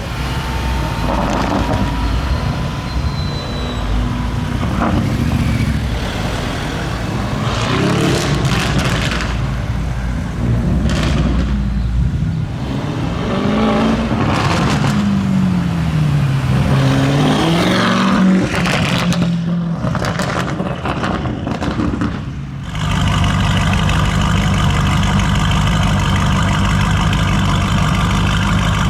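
Lamborghini Urus twin-turbo V8 with a Novitec aftermarket exhaust, revving up and down several times with sharp crackles and pops. About two-thirds in it switches abruptly to a steady, even engine note.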